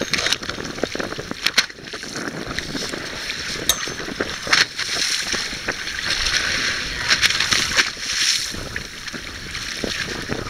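Sea water sloshing and splashing against the side of a boat, with wind buffeting the microphone and a few sharp knocks.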